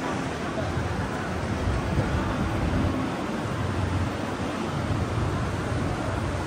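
Steady outdoor city street noise: an even, low rumble with hiss and no distinct events.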